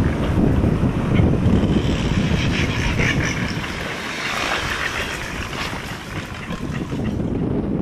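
Wind buffeting the microphone: an unsteady low rumbling rush that eases a little in the middle.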